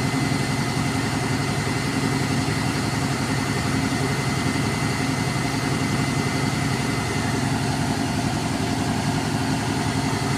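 Pakistan Railways ZCU-20 diesel locomotive 6403 idling while standing still: a steady, evenly pulsing low engine throb with a thin steady high whine above it.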